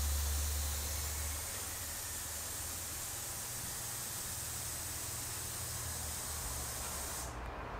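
Air hissing steadily out of a bicycle inner tube as it is let down, taking the pressure off a small puncture before patching. The hiss fades a little and cuts off near the end.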